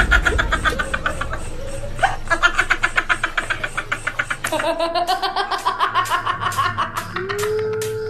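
Laughter in long runs of quick, evenly repeated bursts, with music underneath; a steady held tone comes in near the end.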